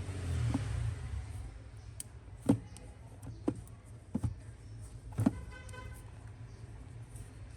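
Phone parts and repair tools being handled on a work surface: about five separate sharp taps and clicks, a brief buzz after the last of them, over a low steady hum.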